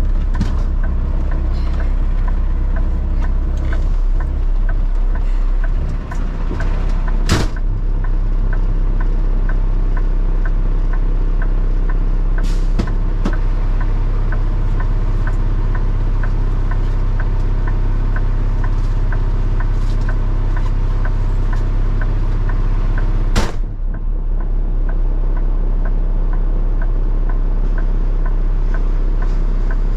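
A vehicle engine running steadily, heard from inside the cab, with a faint regular ticking about twice a second. There are a few sharp knocks: one about seven seconds in, a lighter one near twelve seconds, and one near twenty-three seconds.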